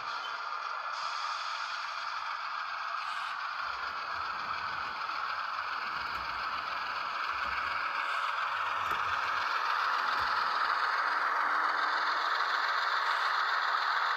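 Model diesel locomotive running along the track, a steady rattle of its wheels on the rails and its motor and gears, growing slightly louder as it comes closer.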